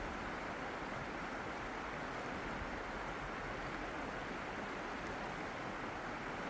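Steady rush of flowing water, even and unbroken, with no swells or separate splashes.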